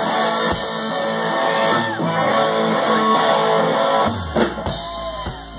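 Live rock band playing an instrumental passage, with the electric guitar to the fore over drums and bass. It gets somewhat quieter near the end.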